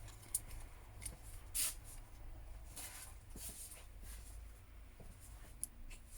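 Faint clicks and short rustles of small phone parts and tools being handled on a workbench, over a steady low hum.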